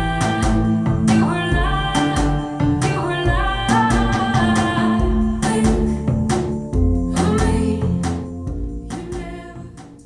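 Recorded music with singing, guitar, bass and drums played through Polk Audio Reserve R200 bookshelf speakers, fading out near the end as the track finishes.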